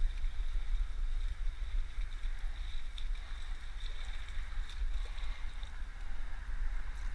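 Wind rumbling on the microphone, with the light splashing of a hooked spotted bass thrashing at the surface near the end.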